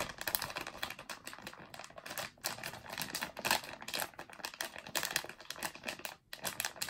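Sealed plastic blind-bag packaging crinkling and crackling in the hands as the small plush toy inside is squeezed and felt through it, in a quick irregular run of small crackles.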